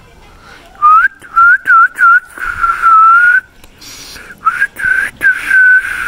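A person whistling to call a dog: a run of short rising whistles, then a longer held note, a pause of about a second, and a second run of short whistles ending in a held note.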